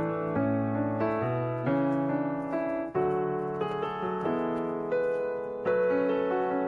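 Background piano music, its notes and chords changing about every half second to a second.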